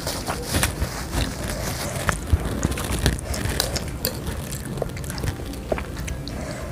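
Close-up eating sounds: chewing of chicken noodles (mie ayam) with soft mouth noises, and scattered light clicks of a fork and spoon against the plate.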